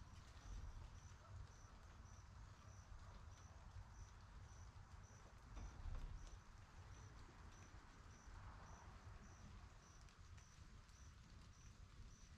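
Near silence: a faint low rumble, with a faint high-pitched insect chirp repeating evenly about twice a second.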